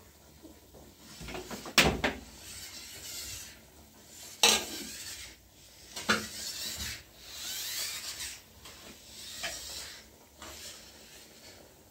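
Handling sounds: a few sharp knocks and clatters, the loudest about two, four and a half and six seconds in, with softer ones later, and rubbing and scraping noise between them.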